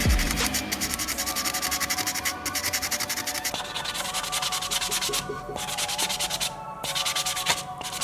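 Sandpaper rubbed by hand over a model car's body in quick back-and-forth strokes, with a few brief pauses.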